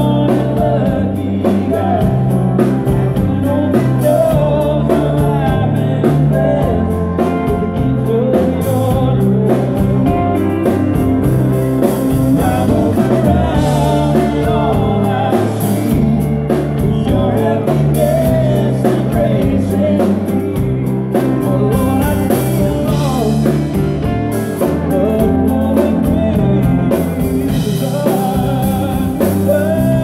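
Live band playing a song with a singer, over a bass line that steps in a regular rhythm.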